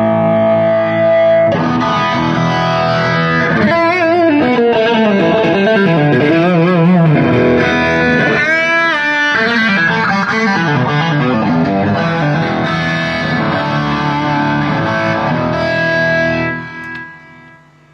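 Distorted electric guitar played through effects pedals: a held chord, then lead lines with string bends and wide vibrato. The sound dies away about a second before the end.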